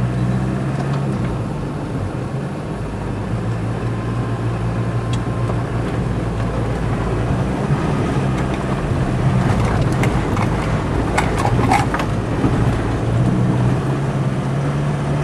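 Four-wheel-drive vehicle's engine running steadily, heard from inside the cabin as it drives a rough dirt track. A quick cluster of rattles and knocks comes about ten to twelve seconds in.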